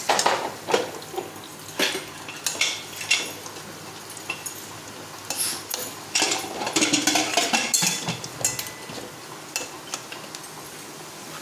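A metal utensil clinking and scraping against cookware while food is stirred, in irregular strokes, with a busy run of scrapes between about six and eight seconds in.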